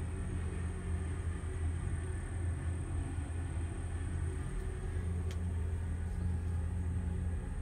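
Steady low mechanical rumble with an even hum, like a machine running without letup, and one faint click about five seconds in.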